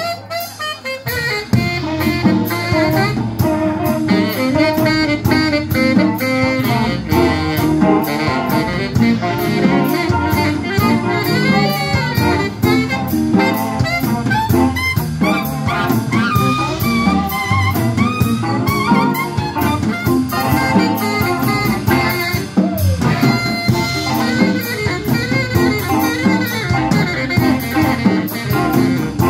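Live blues band playing with a saxophone taking the lead over electric guitars, bass and drums; the band dips briefly right at the start, then plays on at full level.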